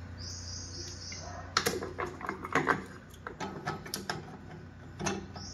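Metal parts of a 6T41 automatic transmission clinking and clicking as a steel clutch assembly is worked down over the shaft and splines inside the aluminium case. Irregular clicks and knocks start about a second and a half in, over a steady low hum.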